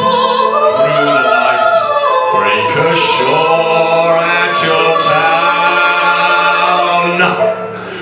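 A folk band playing live, with several voices singing long held notes in harmony over banjo, acoustic guitar and double bass. The sound dips briefly near the end.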